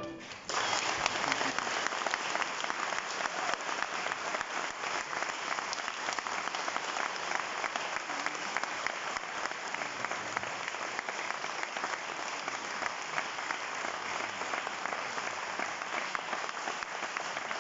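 Audience applauding steadily, starting about half a second in as the big band's last chord dies away.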